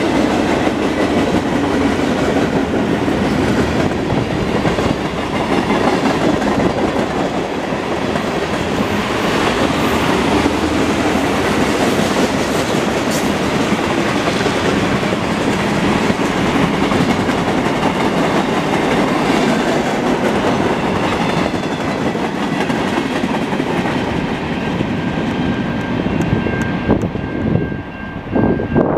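Freight train cars (boxcars and tank cars) rolling past at speed, a steady loud rumble and rattle of wheels on rails. The noise drops away near the end as the last car passes, and a steady high tone comes in.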